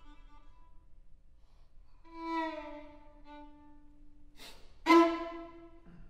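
Two violins playing sparse notes: a note dying away, then after a pause a held note that a second note joins. About five seconds in, after a brief scratchy stroke, comes a loud, sharply accented note that is held for about a second and cut off.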